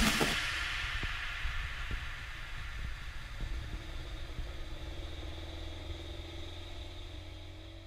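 A steady low rumble with a faint steady hum above it, fading out gradually; in the first half second the last crash of the music dies away over it.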